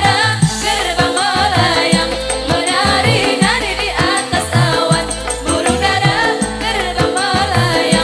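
Qasidah music performed live: women singing the melody into microphones over a band with a steady drum beat.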